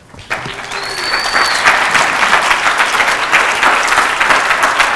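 Audience applauding, swelling over the first second and then holding steady, with a brief high whistle-like tone about a second in.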